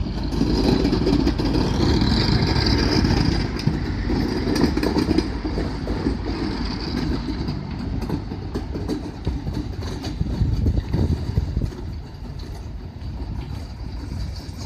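ST44 (Soviet-built M62) diesel locomotive's two-stroke V12 engine running loud as it passes at close range, then fading as it moves away about twelve seconds in.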